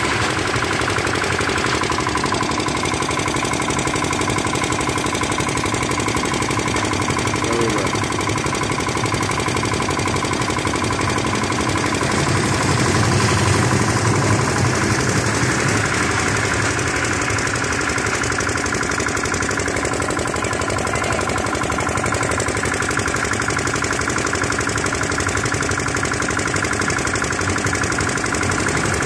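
An engine running steadily with a fast, even beat.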